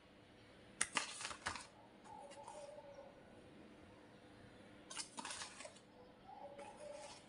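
Metal spoon clinking and scraping against a glass bowl in two short bursts, about a second in and again about five seconds in, as spoonfuls of cornflour are tipped in.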